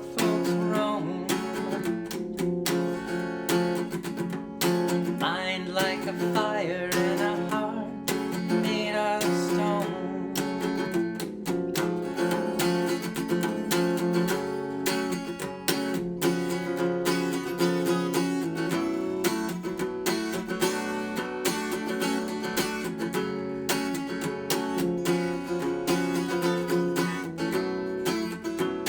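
Music: an acoustic guitar strummed at a steady rhythm, with a melodic line running above it in the first third.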